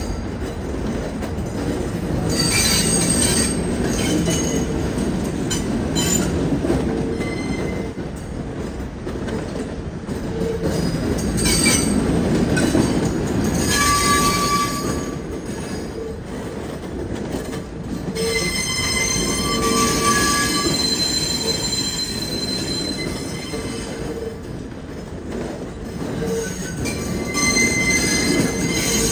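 R68 subway train rolling slowly through the yard's curves and switches: a steady low rumble, with high wheel squeal on the tight curves coming and going in several spells.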